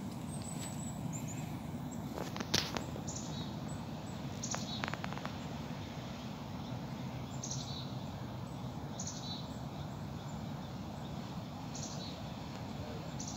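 A small bird repeating a short, high call every second or two in the second half, over a steady low background rumble. A sharp knock about two and a half seconds in is the loudest sound.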